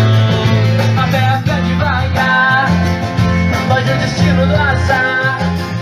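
A pop-rock song with guitar and a steady bass line, played through the Panasonic SA-AK24 stereo's amplifier board under test; a wavering melodic line comes in about two seconds in.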